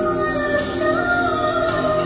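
Ambient show music: slow, sustained melody lines that glide smoothly from one held pitch to the next over a steady held chord.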